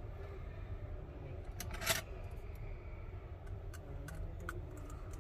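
Small clicks and taps of a hand tool working inside an opened iPhone 13 Pro, with one short, louder clatter about two seconds in, over a low steady hum.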